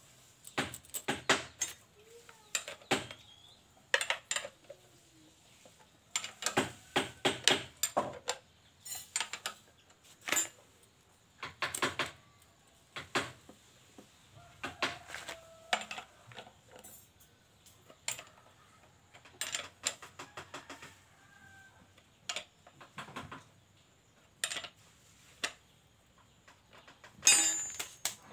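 Steel saw chain of a Stihl 070 chainsaw clicking and clinking against its guide bar as it is handled and pulled around by hand, in short irregular bursts, with a louder metal clatter near the end.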